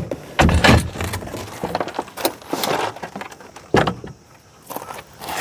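Handling noises: irregular clunks and knocks with rustling between them, the loudest about half a second in and a sharp knock near four seconds in.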